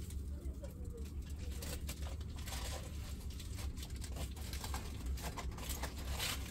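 Aluminium foil crinkling and rustling in irregular crackles as it is handled and unwrapped from around food.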